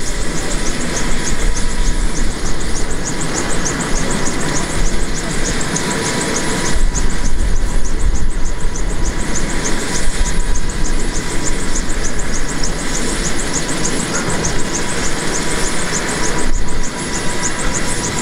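Bell AH-1S Cobra attack helicopter running on the ground with its rotors turning: a steady high turbine whine over the rushing noise of the turboshaft engine and rotor blades.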